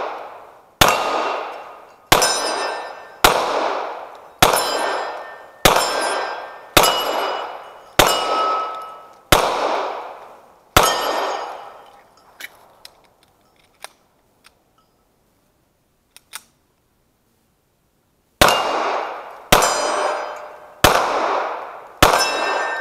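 9mm pistol firing steady aimed shots, each a sharp crack with a ring of struck steel trailing after it: nine shots a little over a second apart, a pause of about six seconds with a few faint clicks, then four more shots.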